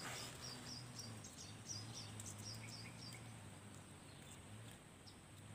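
Faint outdoor ambience: a quick run of short high chirps, about three or four a second, for the first three seconds or so, over a low steady hum.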